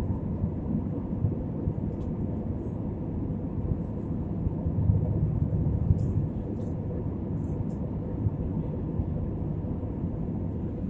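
Steady low rumble of cabin noise inside an Airbus A320-family airliner in cruise above the clouds: engine and airflow noise carried through the fuselage, with a faint steady hum.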